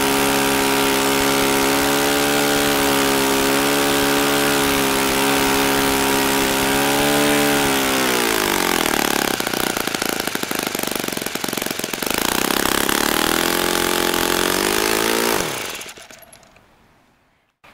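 Saito FA-40 four-stroke glow engine swinging an 11x6 propeller on a test stand, running steadily at high speed. About eight seconds in it is throttled back to a low idle, then opened up partway again. At about fifteen seconds it is shut off, its pitch falling quickly as it stops.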